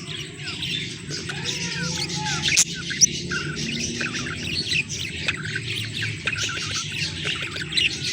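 Budgerigars chirping and chattering steadily, a fast run of high warbles and short squawks with a few sharp clicks, over a steady low hum.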